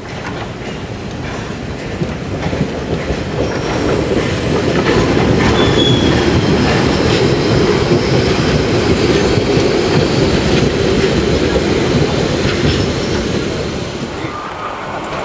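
Harz narrow-gauge steam train passing close by: the coaches rumble and clatter over the rail joints, growing louder over the first few seconds, with brief high wheel squeals about four and six seconds in.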